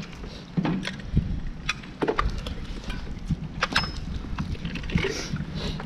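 Low rumble of wind on the microphone with scattered light clicks and knocks at irregular times.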